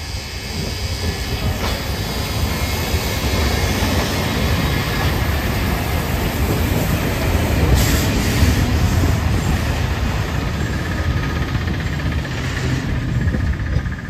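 A train passing close by, its wheels rumbling on the rails. The sound swells to its loudest about halfway through, then eases slightly.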